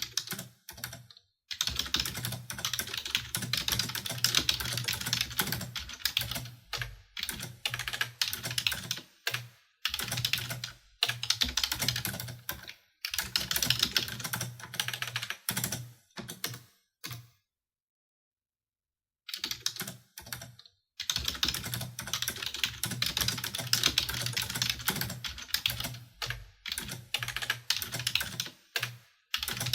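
Fast typing on a computer keyboard: quick runs of key clicks in bursts of a few seconds, broken by brief pauses, with one pause of about two seconds near the middle.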